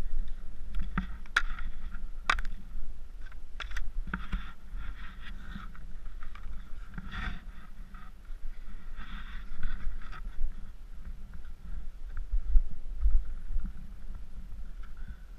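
Wind rumbling on the microphone, with skis and poles crunching and scraping in snow and several sharp clicks as a skier shuffles along a snowy ridge.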